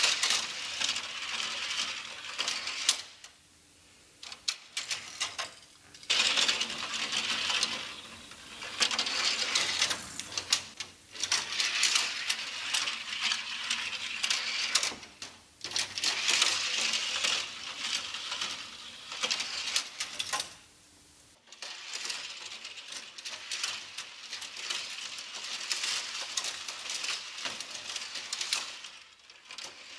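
Die-cast Hot Wheels toy cars rattling as they roll down the spiral plastic ramp of a Fast Lane parking garage playset. The rattling comes in several runs of a few seconds each, with short quiet pauses between them.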